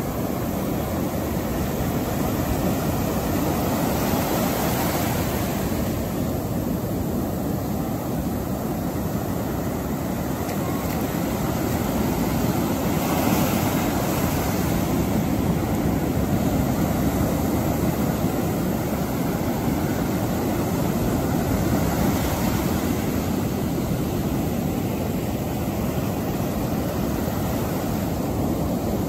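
Ocean surf breaking and washing up the beach: a steady rumbling rush with louder swells a few times as waves break.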